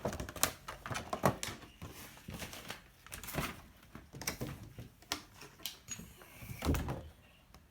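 Irregular clicks, taps and light knocks from hands handling the product's packaging and parts.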